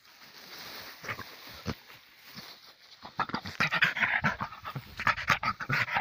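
Russian spaniel snuffling with its nose in the grass, then panting rapidly and loudly from about three seconds in.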